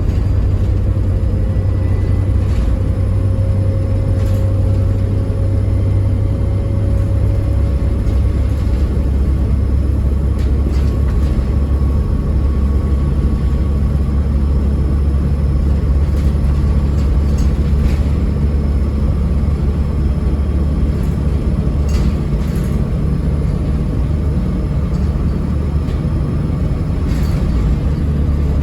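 Bus diesel engine running steadily under way, a constant low rumble with a faint turbo whistle above it. Scattered brief knocks and rattles.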